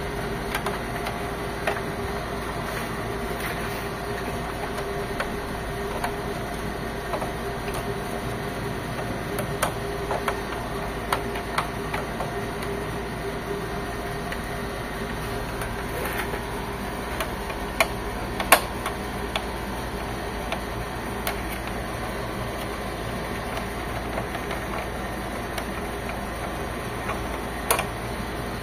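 Scattered clicks and knocks of a screwdriver and the plastic casing parts of an HP Officejet 7612 inkjet printer as its screws are taken out, over a steady mechanical hum. The sharpest knock comes about two-thirds of the way through.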